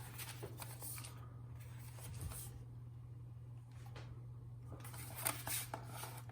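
Quiet room tone with a steady low hum and a few faint clicks and rustles of handling, a small cluster of them about five seconds in.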